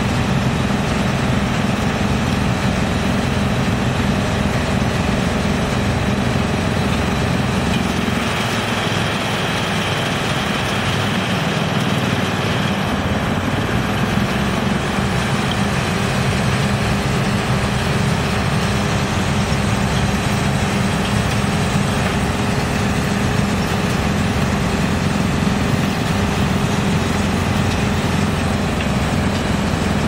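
Drum wood chipper and its discharge conveyor running with a crawler excavator's diesel engine, a steady, loud mechanical din whose tone shifts about eight seconds in.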